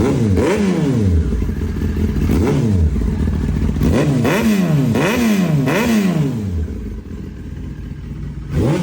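Yamaha R6S inline-four sportbike engine being blipped on the throttle while parked: a string of quick revs, each rising sharply and falling back, then a couple of seconds at idle before another rev near the end. The engine is warmed up, its temperature gauge off the low mark.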